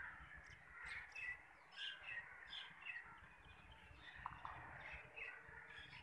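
Many birds chirping and calling, short overlapping calls scattered throughout, faint, over a low rumble.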